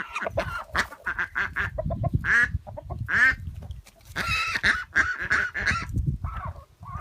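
Ducks calling: a string of short pitched calls in quick succession, some bending in pitch, over a low rumble.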